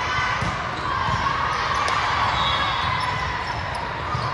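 Echoing volleyball hall din: ball hits and bounces from this rally and neighbouring courts, sharp repeated thuds over a steady wash of crowd voices.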